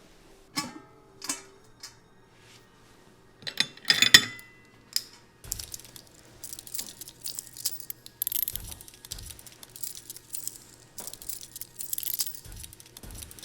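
A few sharp clinks and knocks, the loudest cluster about four seconds in, then a steady crackling, rustling handling noise over a faint low hum.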